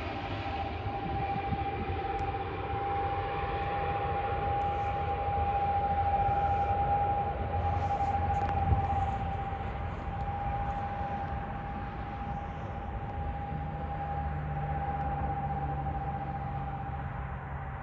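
ATR 72-600 twin turboprop on final approach and landing, its Pratt & Whitney PW127 engines and propellers giving one steady high whine over a low rumble. A lower hum joins about three quarters of the way through.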